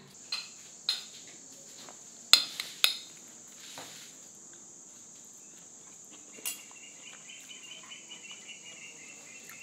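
A spoon clinks against a bowl a few times in the first four seconds, with crickets chirping steadily throughout. A second, lower pulsing cricket trill joins about six and a half seconds in.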